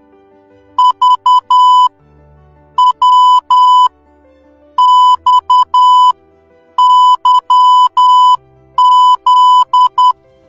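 Morse code beeps from a steady electronic tone of about 1 kHz, keyed in short dits and long dahs. Five letters come one about every two seconds: V (...-), W (.--), X (-..-), Y (-.--) and Z (--..). Soft background music plays underneath.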